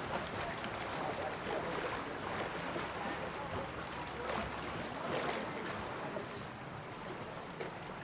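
Steady wash of sea water with wind noise.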